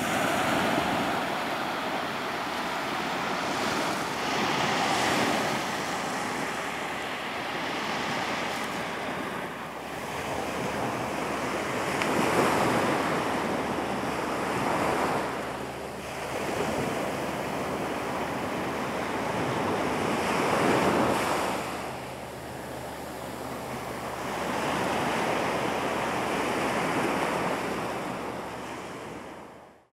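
Ocean surf: waves breaking and washing up a sandy beach, swelling and ebbing every few seconds, fading out at the very end.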